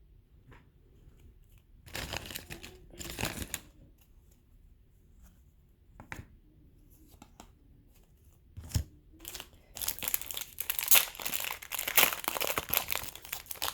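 Foil wrapper of a baseball card pack being torn open and crinkled: a couple of short rips early on, a few small clicks, then steady crackling of the foil from about ten seconds in.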